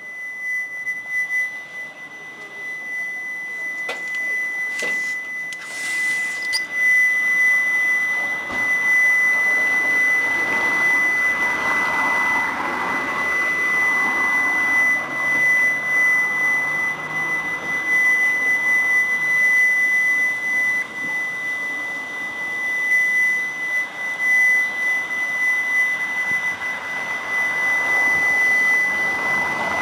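A strange, loud ambient sound: a steady high-pitched tone over a wavering drone that swells in about eight seconds in. Its source cannot be located.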